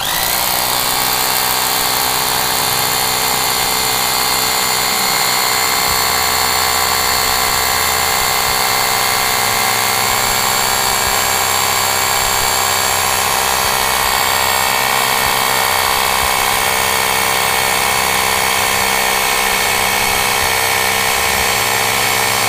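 DYK 2-28 rotary hammer drill running in hammer mode, boring a masonry bit into a block of stone. The motor and hammer action run steadily and loudly without a break.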